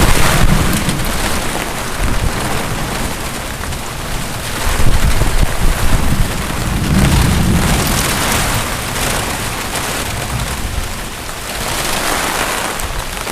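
Torrential rain pouring down in a severe thunderstorm, with strong wind gusts buffeting the microphone in heavy low rumbling surges, the strongest about five seconds in.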